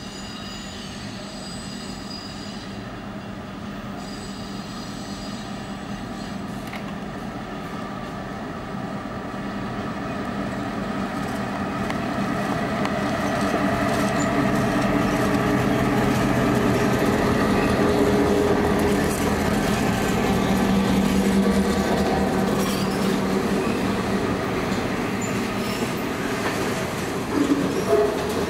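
Freight train led by two EMD GP38 diesel locomotives approaching, their two-stroke diesel engines running with a steady drone. The sound grows louder over the first half and then holds steady.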